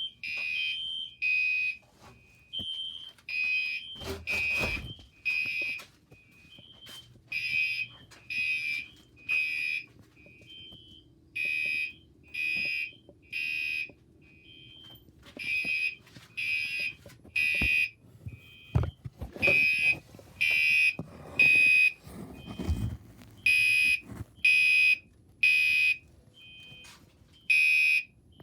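Fire alarm horns sounding the temporal-three evacuation pattern: three short blasts, a pause, then again about every four seconds. A second, higher beep tone runs out of step with them. A few knocks from handling come about four seconds in and again past the middle.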